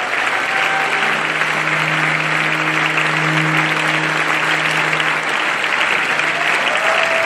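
A large theatre audience applauding steadily, with music playing faintly underneath.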